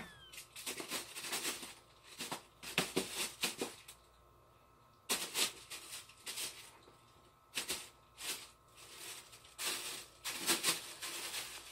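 A house cat playing: its paws scrabbling and rustling things in short irregular bursts, including rummaging in a plastic bag.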